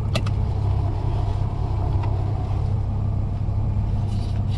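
Engine of a 2008 BMW 335i, an N54 twin-turbo straight-six with catless downpipes, running with a steady low drone.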